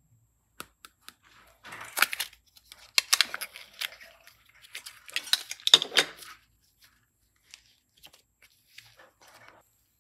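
Hands working slime or clay, making crackly, crinkly clicks and short tearing rasps in three busy bursts, the loudest about six seconds in, with scattered faint clicks between.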